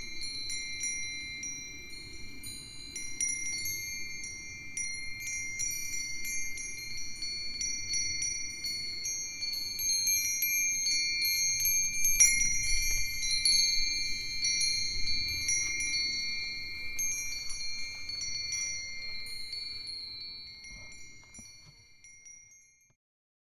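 A set of Japanese metal and stone wind chimes (furin), including Myochin hibashi iron rods, Nambu cast-iron bells, Nousaku brass bells and a sanukite chime, ringing together in the wind. Many light strikes keep long high tones going, and the sound fades out near the end.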